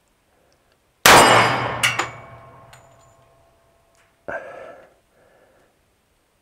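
A single shot from a Springfield Armory Champion Operator .45 ACP pistol about a second in, followed by a sharp metallic clink with a ringing tone that dies away over about two seconds. A much quieter short sound follows a few seconds later.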